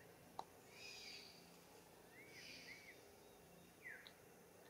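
Faint forest ambience with a few brief, high chirping bird calls and one soft click near the start.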